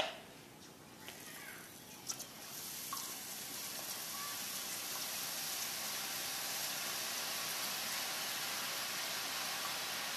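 Gram-flour boondi batter dripping through a perforated ladle into hot oil in an iron kadai, the oil sizzling and building to a steady, hard sizzle from about two seconds in as a fresh batch fries. A sharp metal click at the start and another about two seconds in.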